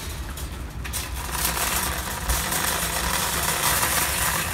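Metal wire shopping cart rolling over cracked asphalt, its wheels and basket rattling with a steady rumble that grows a little louder after about a second.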